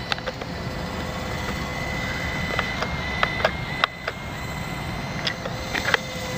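Small electric R/C airplane motor giving a thin, steady high whine that steps slightly in pitch, over a steady low rumble, with scattered short clicks.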